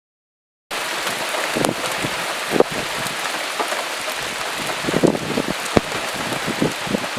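Heavy rain falling steadily, cutting in suddenly about a second in, with louder single drops striking close by every second or so.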